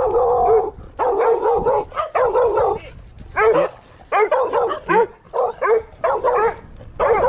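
Several small dogs barking in quick runs of barks, with a short lull about three seconds in.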